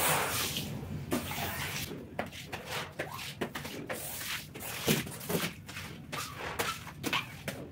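Footsteps and plastic buckets being handled and carried: a string of irregular light knocks and clatters, with one louder knock about five seconds in.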